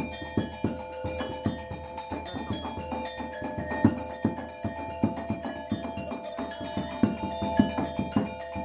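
Lively dance music: a quick, steady run of drum strikes under held melodic tones.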